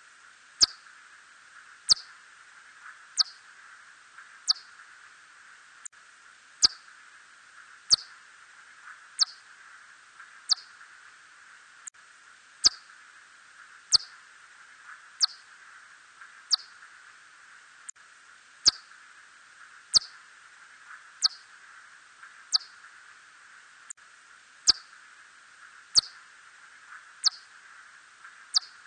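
Red bat (Myotis rufoniger) echolocation calls: a steady train of short downward-sweeping chirps, about one and a half a second, some with a sharp click, over a steady hiss.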